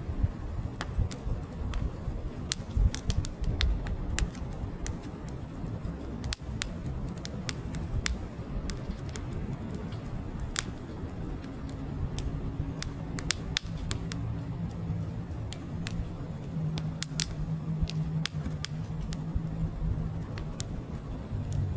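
Split firewood burning: irregular sharp crackles and pops over the low, fluttering rumble of the flames.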